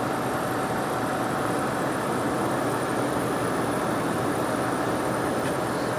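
Late-1960s Sears Coldspot 6,000 BTU window air conditioner running steadily, its fan rushing air with a faint steady hum over it.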